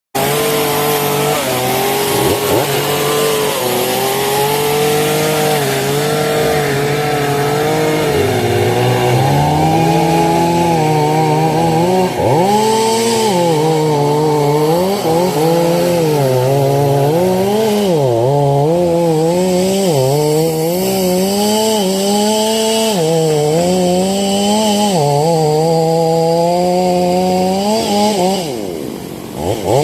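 A Stihl two-stroke chainsaw running hard while cutting wood. The engine pitch repeatedly dips under the load of the cut and picks back up. Near the end the revs drop off briefly, then climb again.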